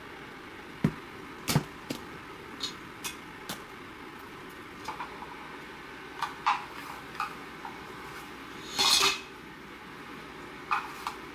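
Dishes and cutlery being handled, with a dozen or so separate clinks and knocks at uneven intervals and one longer, noisier clatter about nine seconds in.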